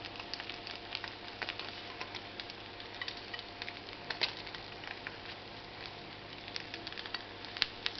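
Omelette sizzling in a frying pan, a steady hiss with many small irregular crackles, from the pan's leftover heat after the hob has been switched off.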